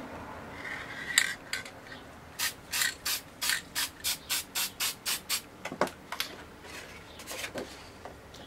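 Aerosol spray paint can fired in a quick series of short puffs, about four a second, with a few knocks after them.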